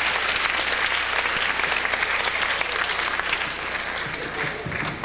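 Assembly audience applauding, the clapping thinning out near the end.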